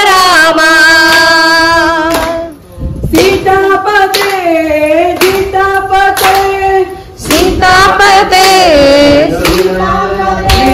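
Group of voices singing a Rama bhajan in kunita bhajane style, with hand claps keeping the beat. The singing comes in long held phrases with two short breaks.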